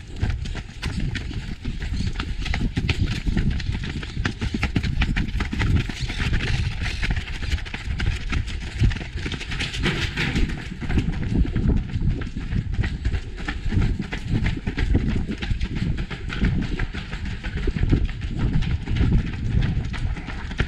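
Fast footfalls of several runners at race pace on pavement and stone paving, heard as a continuous patter from a camera carried by one of the runners, with rumbling noise from the camera moving.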